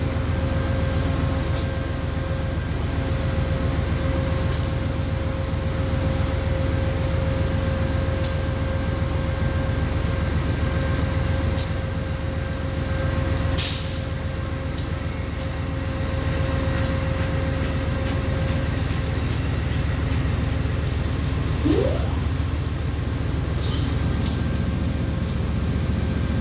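Steady low rumble of a running vehicle, with scattered sharp clicks and a short rising squeal near the end.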